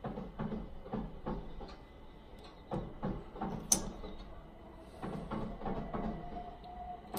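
Plastic Lego bricks clicking and knocking as pieces are handled and pressed together, a string of short irregular clicks with one sharp loud click about three and a half seconds in. A faint steady tone comes in near the end.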